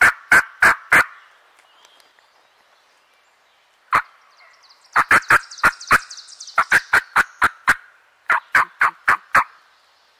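Wild turkey yelping: loud runs of evenly spaced yelps, about three or four a second. One run ends just after the start, a single yelp comes about four seconds in, then longer runs follow.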